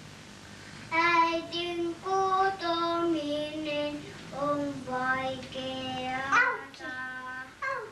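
A small child singing a melody in long held notes, starting about a second in.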